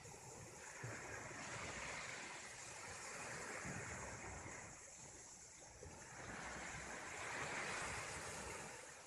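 Sea waves washing on the shore, the wash swelling and fading every few seconds.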